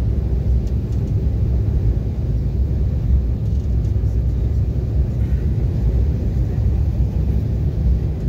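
Steady low rumble of a small airliner in flight, engine and airflow noise heard inside the passenger cabin.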